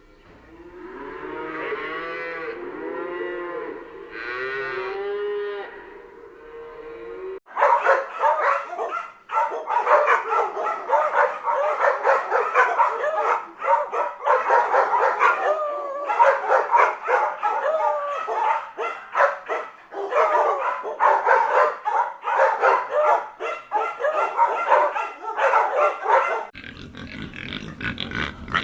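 Cattle mooing: first a few long, low moos from one or two cows, then from about seven seconds in many cattle calling over one another. Near the end it changes to a lower, rougher animal sound.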